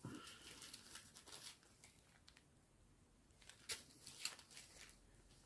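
Faint rustling and a few light clicks of small zip-lock plastic bags of round diamond-painting drills being handled, in two short spells.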